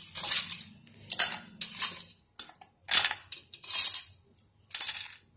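Ice cubes dropped one after another into a glass jug of phalsa berries and water, each one clinking against the glass: about half a dozen sharp clinks.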